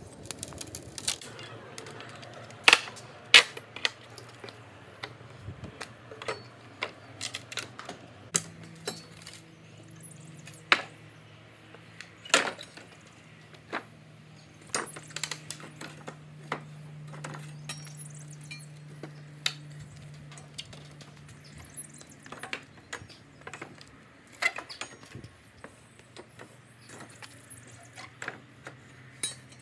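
A steel pallet breaker bar levering deck boards off a wooden pallet: irregular sharp cracks and clanks of metal on wood, some of them loud, with a faint steady low hum underneath.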